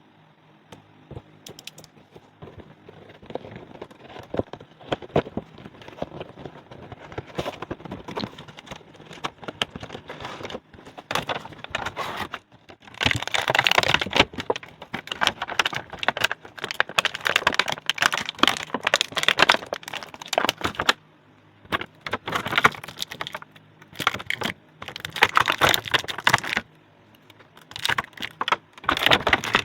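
Toy packaging being opened by hand: a dense run of crinkles, clicks and crackles from the box and its plastic packaging. It grows much louder about halfway through and breaks off briefly twice near the end.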